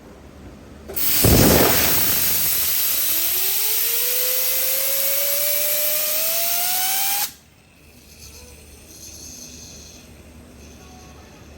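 A power tool run in one continuous burst of about six seconds: a loud rush of hiss with a whine beneath it that rises steadily in pitch as something spins up, then cuts off abruptly.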